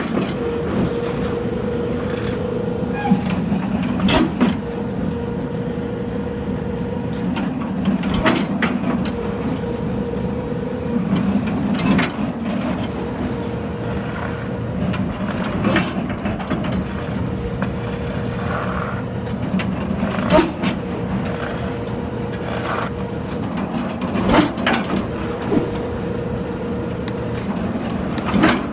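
A piling machine running steadily with a low motor hum, a knock or clank about every four seconds and lighter clicks in between as it works.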